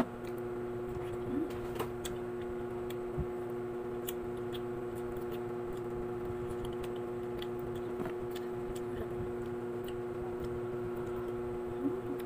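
Soft eating sounds: faint, irregular clicks and smacks of someone biting and chewing slices of ripe papaya, over a steady low hum.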